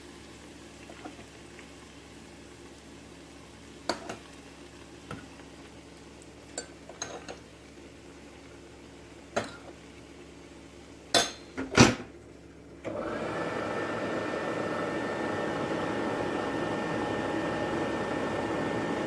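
Scattered clinks and knocks of utensils and the lid against a Tefal air fryer's cooking bowl, the loudest a quick pair just before the two-thirds mark. Then the fryer's fan starts suddenly and runs steadily, a rush of air with a faint high whine, as it resumes cooking.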